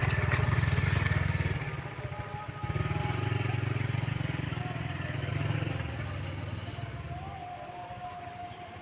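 A small engine running with a low, throbbing rumble that fades away over the last few seconds.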